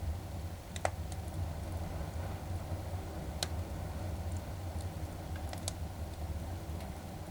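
Log fire crackling: scattered sharp pops and snaps over a steady low rumble, with a louder pop about a second in and another near the middle.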